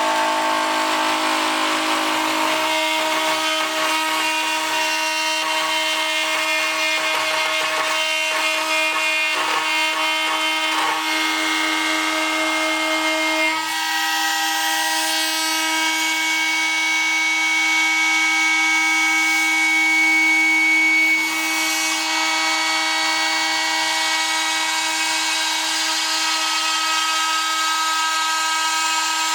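DIY CNC machine milling 2 mm aluminium plate: the spindle's steady whine, made of several tones over cutting noise. The higher tones shift abruptly a few times as the machine moves on.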